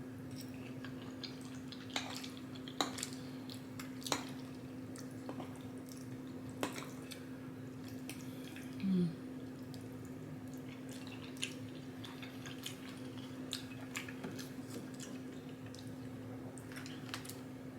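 Close-up eating sounds of a person chewing: soft wet mouth noises and scattered sharp clicks and smacks over a steady low hum, with a brief closed-mouth hum about halfway through.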